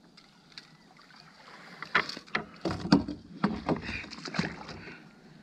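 An irregular run of sharp knocks and dull thumps on a fishing kayak, starting about two seconds in and lasting about two and a half seconds.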